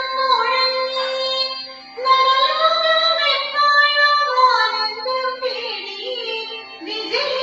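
Music: a high voice singing a slow melody with long held, gliding notes over a sustained low note.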